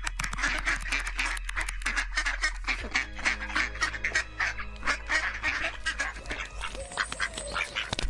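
Many ducks quacking rapidly and irregularly, with music underneath; from about three seconds in, steady pitched tones join the quacking.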